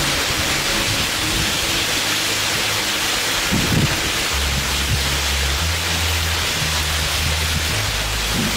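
Heavy rain falling in a steady, dense hiss, with rainwater streaming over rock. Low background music notes come in about halfway through.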